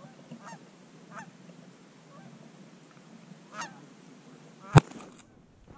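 Geese honking faintly, a few short calls spaced out over a light hiss, then a single sharp crack near the end.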